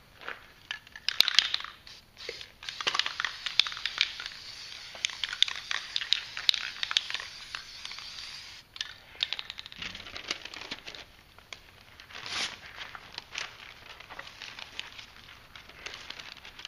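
Glossy magazine pages being crumpled and crinkled by hand, a dense crackling that is busiest in the first half and turns to scattered crackles later.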